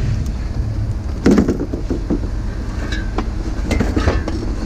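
Vehicle driving, a steady low rumble with a few short knocks or clatters, the loudest about a second in.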